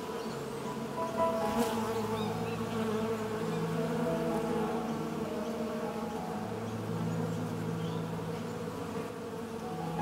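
Bees buzzing: a steady droning hum of many bees, the pitches within it shifting now and then.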